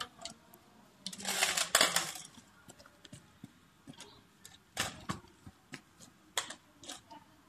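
Light clicks and knocks of a small plastic remote-control stunt car being handled and set down on the ground. A louder rushing burst comes about a second in.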